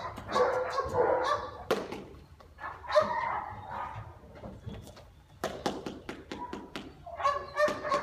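Puppy giving high yips and barks while tugging on a toy, in bursts near the start, about three seconds in and near the end, with a run of sharp clicks in between.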